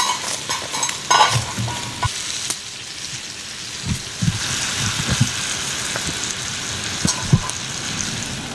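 Wood campfire burning with a steady hiss and crackle and scattered sharp pops.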